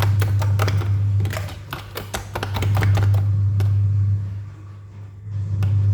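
A spoon clicking and scraping quickly against a bowl while stirring beaten eggs and sugar, thickest in the first two seconds with a few more strokes around three seconds in. A steady low hum runs underneath.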